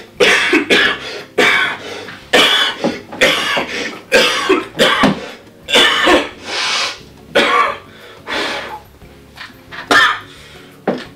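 A man with a cold in a long coughing fit: loud, harsh coughs over and over, coming in quick clusters of two or three with short pauses between.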